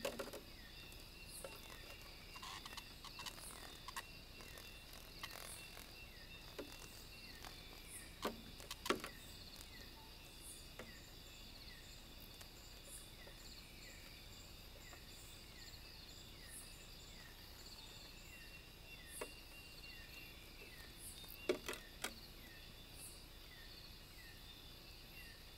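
Night insect chorus: a steady high trilling, with a short falling chirp repeating a little under twice a second. A few sharp clicks or knocks stand out above it, in pairs near the middle and near the end.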